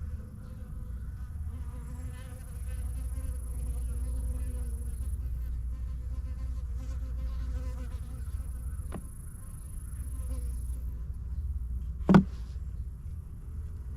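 Swarm of honey bees buzzing steadily around an opened hive during an inspection. A sharp knock sounds about twelve seconds in, with a fainter click a few seconds earlier.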